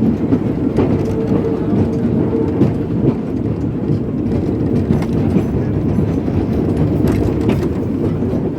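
Train carriage rolling along the track: a steady rumble with a faint hum and a few scattered clicks from the wheels.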